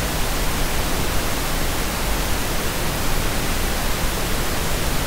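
Steady, even hiss of recording noise on the microphone line, with no other sound.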